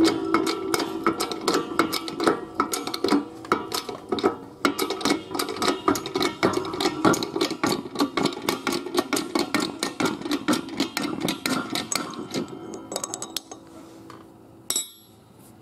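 Rapid metal-on-metal strokes, several a second, as a bearing and shaft are worked apart on a mower gearbox sprocket. The metal rings faintly along with the strokes. They die away near the end, followed by one sharp click.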